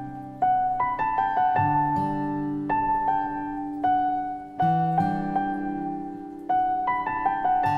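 Slow, gentle piano music: soft chords and single notes struck and left to ring out and fade, with a new chord every second or two.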